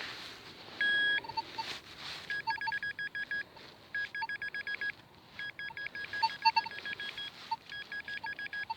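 Metal detector beeping over a buried target: one short steady tone, then runs of rapid high beeps, about ten a second, starting and stopping as it sweeps over the signal.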